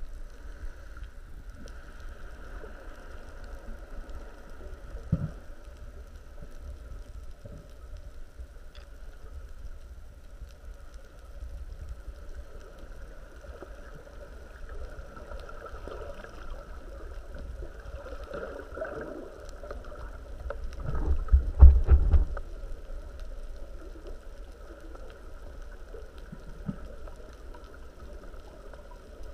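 Muffled water noise picked up by a camera underwater: a low rumble with gurgling and sloshing, a few soft knocks, and a louder low surge about 21 seconds in.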